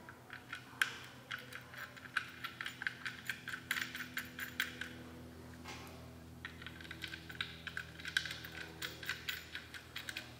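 Quick, light metallic clicks and ticks of small screws and hardware being handled and threaded by gloved hands on an electric motor's aluminium end bell. The clicks come in two runs with a short pause in the middle, over a faint steady hum.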